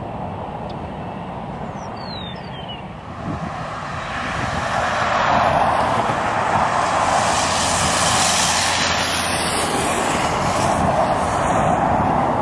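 Engine of a single-engine propeller plane on approach, a steady drone that swells about four seconds in and then holds loud.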